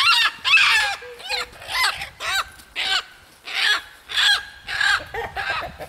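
Bantam chickens calling: about a dozen short calls, each rising and falling in pitch, in quick irregular succession.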